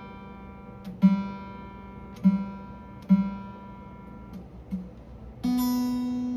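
Acoustic guitar's new phosphor bronze G string plucked singly about four times while being tuned up, each note left to die away. Near the end a louder, higher string is plucked and left ringing.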